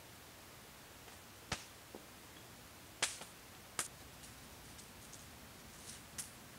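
Wood fire crackling: scattered sharp pops and snaps, about ten of them at irregular intervals, over a faint steady hiss. The loudest pops come about three seconds in and again a little later.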